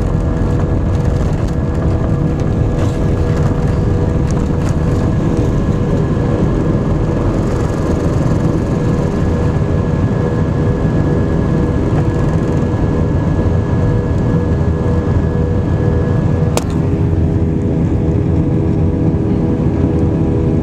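Airbus A320 jet engines running loud and steady, heard from inside the passenger cabin, a low rumble under several steady tones. A sharp click comes about three-quarters of the way through, and the engine tones shift slightly after it.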